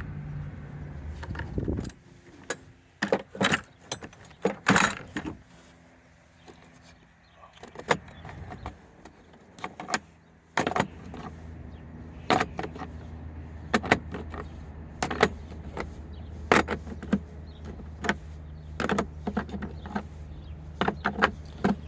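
Steel sockets clinking and clacking as they are picked up and set back in a mechanic's tool set case: a series of irregular sharp metallic clicks. A steady low hum runs underneath, stopping about two seconds in and coming back about halfway through.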